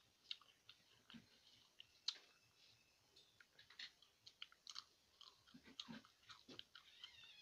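Faint close-up sounds of a person chewing food, with many short, wet mouth clicks.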